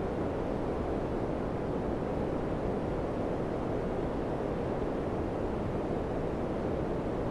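Daikin FCQ100KAVE4 ceiling cassette air conditioner running, a steady rush of air from its fan with no change in pitch or level.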